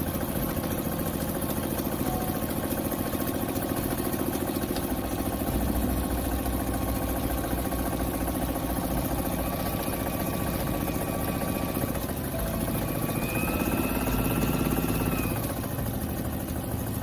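Brother 661 sewing machine running steadily as it stitches a zigzag seam through a thick folded strap, its motor and needle mechanism freshly cleaned and oiled. The motor speeds up about three-quarters of the way through, then slows again.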